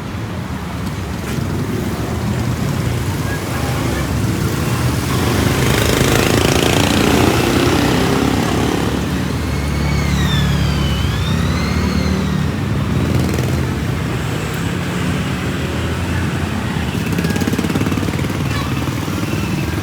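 Street traffic: motor vehicles running and passing, with a louder pass building about five to eight seconds in. Around ten seconds in, a high wavering tone rises and falls twice over about three seconds.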